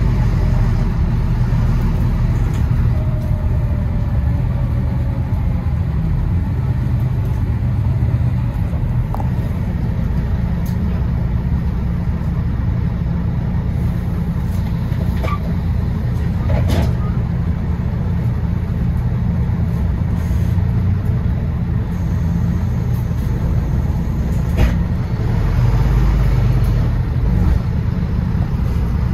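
London bus running along the road: a steady low drone of engine and road noise, with a few sharp clicks or rattles, three of them about halfway through and near the end.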